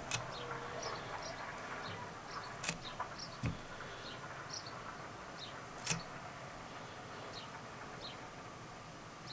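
Quiet room tone with a few light clicks and taps from hands handling thin card strips. Short, faint, high-pitched chirps are scattered throughout.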